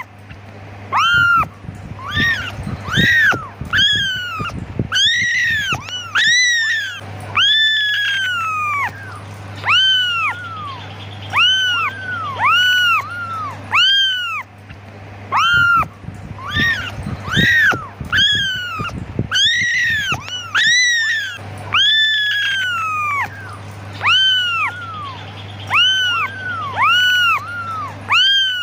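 Young kittens meowing over and over to call their mother: high calls that rise and fall, about one a second, some overlapping. A faint steady low hum runs underneath.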